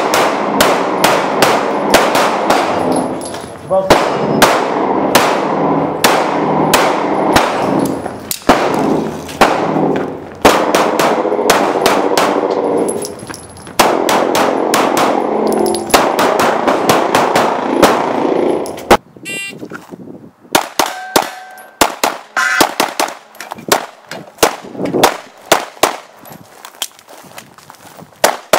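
Rapid pistol fire in quick strings, with steel targets clanging and ringing after the hits. After a brief pause about two-thirds of the way through, a sparser string of shots follows, each hit leaving a clear ring.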